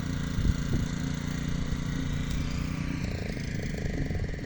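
Small petrol engine running steadily, then cutting out about three seconds in: it has stalled again.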